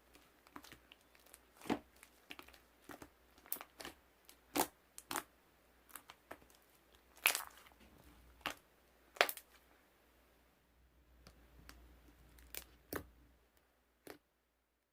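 Irregular crinkling and crunching crackles, sharp snaps at uneven intervals with a few louder ones in the middle, thinning out toward the end.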